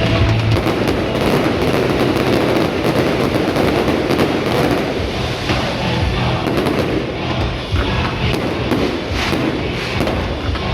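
Fireworks bursting and crackling in a dense, continuous barrage of pops and bangs, with music playing underneath.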